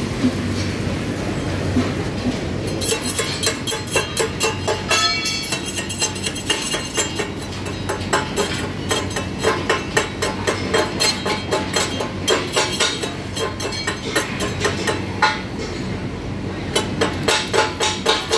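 Hand hammer striking a welded steel piece on a steel welding bench: sharp, ringing metal-on-metal blows about two to three a second, starting about three seconds in, with a brief pause about fifteen seconds in. A steady workshop hum lies beneath.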